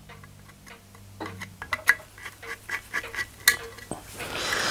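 Small, irregular metallic clicks and taps as a screwdriver backs the last screw out of the tin-plate engine plate of an Empco B-43 model steam engine and the plate is worked loose, with one sharper click about three and a half seconds in.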